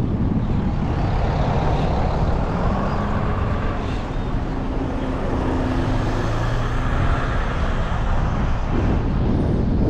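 Car driving slowly: a steady low rumble of engine and road noise.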